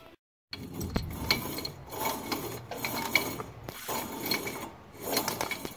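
A car's turning front wheel hub and CV axle making a weird noise: a rough rubbing and scraping that comes back about once a second, from a part rubbing as the assembly turns, with a smell of rubber.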